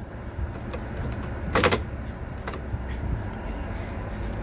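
A motorhome's gasoline engine idling, heard from the driver's seat as a steady low rumble. A short high-pitched sound cuts in briefly about a second and a half in.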